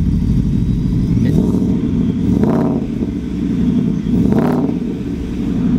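2020 Ford F-150's 5.0-litre V8 running through a full aftermarket exhaust of high-flow pipes and MagnaFlow mufflers. It idles, then is revved briefly twice, about two seconds apart, each rev rising and falling quickly.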